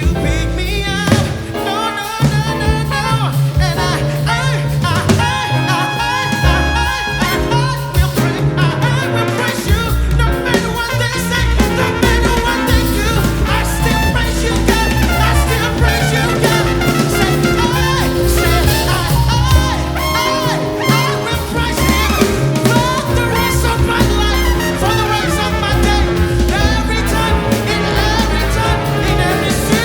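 Jazz band playing an instrumental passage: brass horns carry held melody notes over piano, walking double bass and drum kit, in a swing feel.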